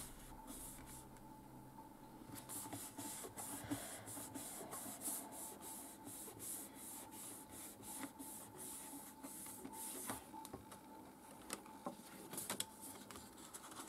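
Hands rubbing and smoothing over a sheet of paper, pressing a glued fold flat: faint, quick swishing strokes, about two to three a second, followed by looser rustling as the paper is lifted and handled near the end.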